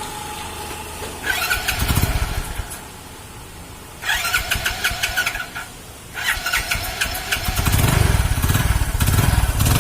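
A Hero HF Deluxe's 100 cc single-cylinder four-stroke engine being cranked over in three tries, catching on the third and running loudly. It has an abnormal crank-like noise from inside the engine, which the mechanic traces to a cut head gasket leaking compression.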